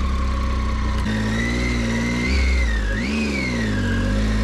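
Motorcycle engine running at low speed, its pitch rising and falling twice as the throttle is opened and eased off while riding slowly.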